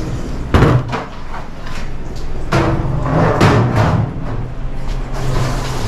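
A large plastic food-service bucket being handled: a sharp knock about half a second in, then a second or so of knocking and scraping around the middle. A steady low hum runs underneath.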